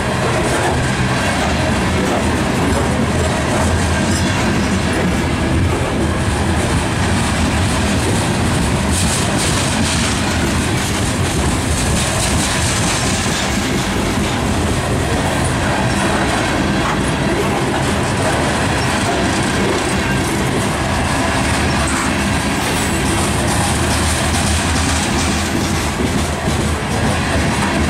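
Covered hopper cars of a freight train rolling past: a steady, loud rumble and rattle of steel wheels on the rails.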